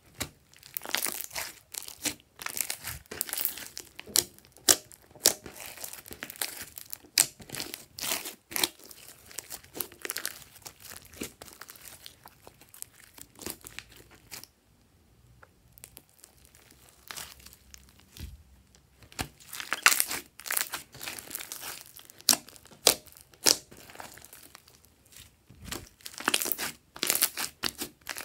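Hands squishing, stretching and pressing a large mass of sticky slime studded with foam beads, giving rapid sticky crackles and pops. A quieter stretch of a second or two comes about halfway through.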